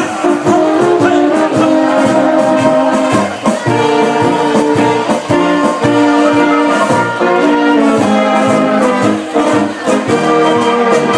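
Live Bohemian-style brass band playing, with a trumpet lead over held brass chords and a steady beat.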